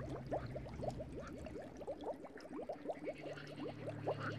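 Water bubbling: a quick, irregular run of small bubble blips, likely from an aquarium air bubbler, over a low steady hum that gets stronger about three seconds in.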